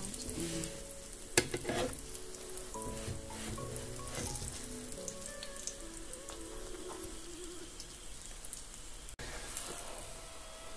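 Chapatis sizzling as they fry in cooking oil on a flat pan, a steady light crackle, with one sharp tap about a second and a half in as they are turned with a metal spoon.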